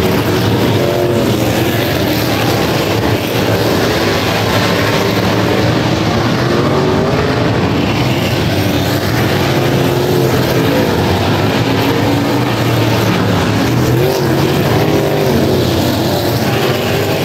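A field of wingless super sportsman race cars running on a dirt oval, their engines loud and continuous, several at once, with pitch rising and falling as they accelerate through the turns and pass close by.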